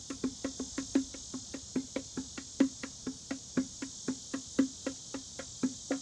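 Bongos tapped by hand in a loose, irregular rhythm, a few short pitched strokes a second, over a steady high drone of cicadas.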